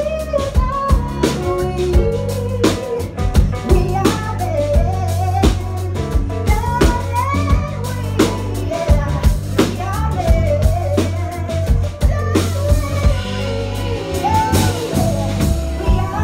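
Live pop band playing: a woman sings the melody over strummed acoustic guitar, electric guitar, bass and a drum kit keeping a steady beat.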